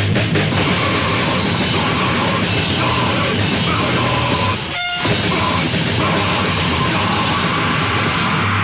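Loud, distorted heavy metal / punk band music from a 1987 demo recording: guitars, bass and drums playing dense and fast. The band drops out briefly just before five seconds in, with a short ringing note, then comes straight back in.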